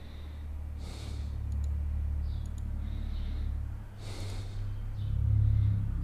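A person breathing near a close microphone: two audible breaths, about a second and about four seconds in, over a steady low hum that swells near the end.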